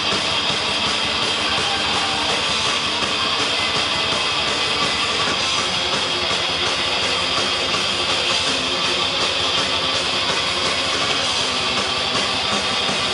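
Heavy metal band playing live: electric guitars, bass guitar and drums at a steady loud level, with no breaks.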